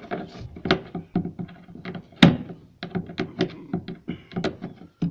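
Pliers clicking and knocking against a tail-lamp mounting bolt and the car body as the bolt is worked loose: a run of short, sharp metal clicks, with one loud knock about two seconds in.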